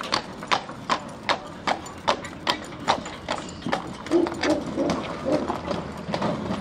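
A shod draft stallion's hooves clip-clopping in a steady rhythm of about three strikes a second.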